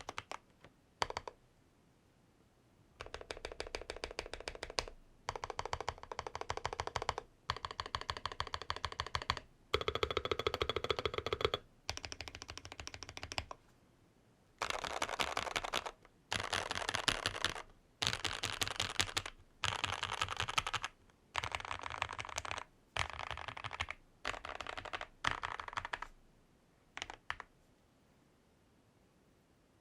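Typing on a mechanical keyboard with Gazzew Boba LT long-pole linear switches in a steel-plated, tape-modded Varmilo VA87M with PBT keycaps, giving a deep, thocky keystroke sound. The keys go in fast runs of a second or two with short pauses between, and the typing stops about 27 seconds in.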